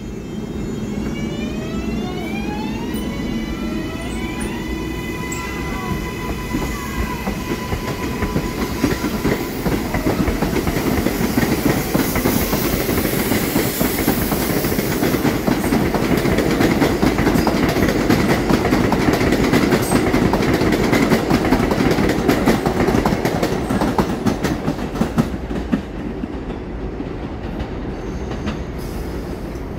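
New York City subway 4 train of R142-family cars pulling out of an elevated station: its electric traction motors give a stack of rising whining tones for the first few seconds that settle into a steady whine. Then comes the clatter and rumble of steel wheels over the rail joints, loudest in the middle as trains run along the el, fading near the end.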